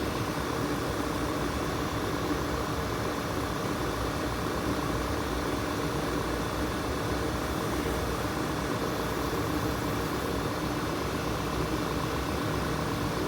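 2016 Volkswagen Tiguan's engine idling steadily with the air conditioning switched on.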